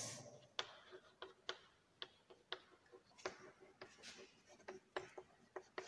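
Faint, unevenly spaced clicks of chalk tapping against a blackboard while words are written.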